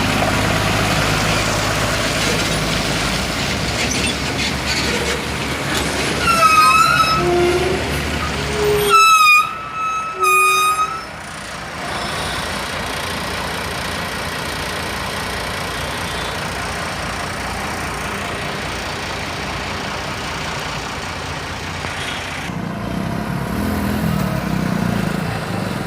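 Steady road traffic and engine noise, with a vehicle horn sounding several short blasts between about six and eleven seconds in.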